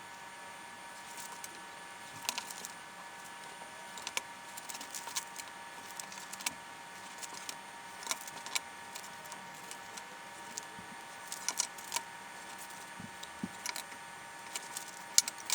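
Scattered light clicks and taps, irregularly spaced, over a steady hum with several fixed pitches.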